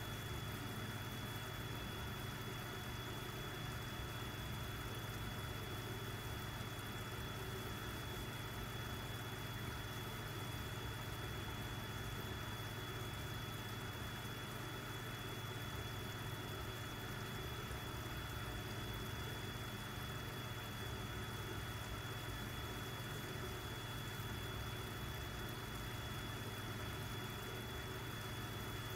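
An aquarium air pump hums steadily while an air stone bubbles in the tank. A thin, steady high whine runs alongside.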